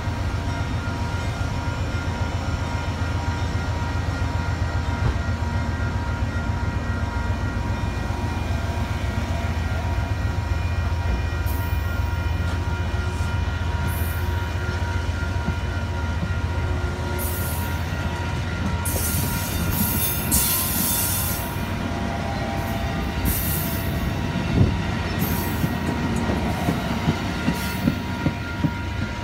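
Amtrak Amfleet passenger cars rolling slowly past as the train pulls out of the station, with a steady low rumble and hum. From about the middle, short high-pitched wheel squeals come and go, and near the end a run of sharp clicks, about two a second, comes from wheels passing over rail joints.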